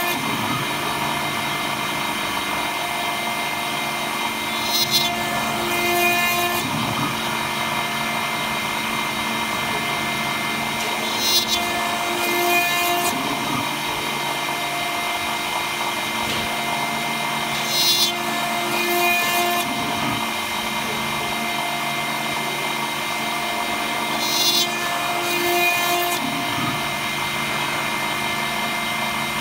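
CNC milling machine spindle running steadily while a small end mill cuts a brass plate under coolant spray. Short, sharper cutting bursts come in pairs about a second apart and repeat every six and a half seconds as the tool works round its path.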